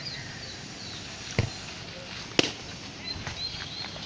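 Two sharp knocks about a second apart, the second louder, over a steady outdoor background with birds chirping.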